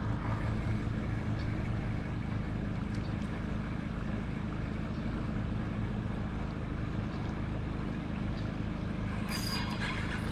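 Steady rushing of river water, with a short, sharp noise about nine seconds in.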